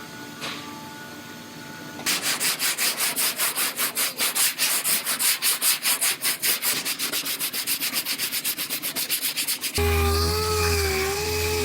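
Hand sanding on a truck's bedside bodywork: rapid, even back-and-forth strokes, about six a second. Near the end it cuts abruptly to a steadier tool-like hum with a wavering pitch.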